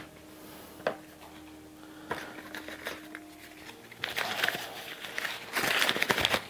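Cardboard shipping box being handled: a couple of light knocks, then rustling and scraping of the cardboard as the lid is opened and moved, loudest about four seconds in and again near the end.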